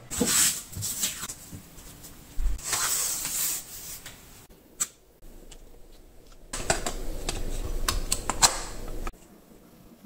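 Handling noises from a silicone sealant tube and caulking gun: plastic scraping and rubbing as the nozzle is fitted and the gun readied, in several short bursts with a few sharp clicks.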